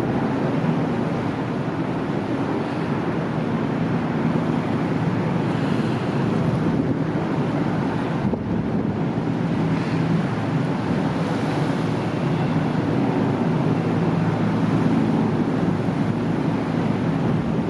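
Steady low drone of a 696-ton car ferry's diesel engines as it moves through the harbour, under a constant rush of wind on the microphone.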